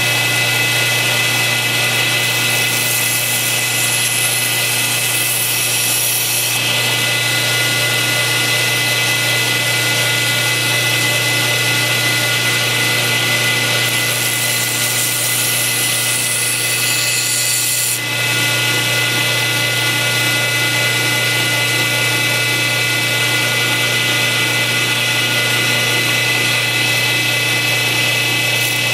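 Steady running of an electric bench sharpening machine's motor, with a constant hum, while a knife edge is worked on it; brighter hissing stretches about three and fourteen seconds in, each lasting a few seconds.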